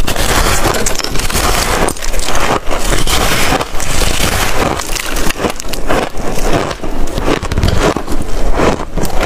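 Close-miked biting and chewing of a chunk of packed white freezer frost, crushed between the teeth in a dense run of crunches.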